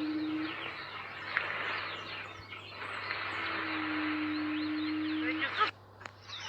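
The unexplained low, steady droning call from the Guizhou mountains, known as the 'dragon call', sounding briefly at the start and then for a couple of seconds from about three seconds in. It is heard over a dense chorus of chirping birds or insects, and everything cuts off abruptly near the end.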